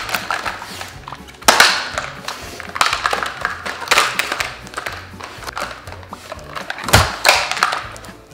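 Australian shepherd pouncing on and tossing a plastic toy lizard on a tile floor: irregular thuds and clatters of the toy and paws hitting the hard floor, the loudest a deep knock near the end.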